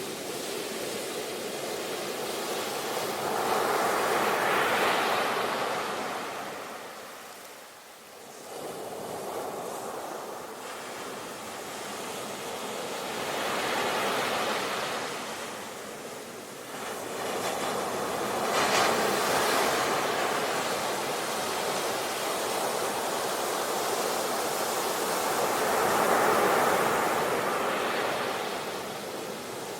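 Ocean waves washing onto a shore: a steady rush of surf that swells and fades in slow surges several seconds apart.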